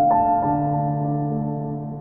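Soft, slow background music with piano-like notes that sound and slowly fade.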